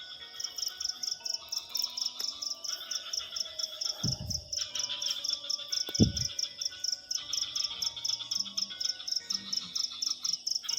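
Crickets chirping in a steady, even pulse of about five chirps a second. Two short low sounds that fall in pitch come about two seconds apart, midway through.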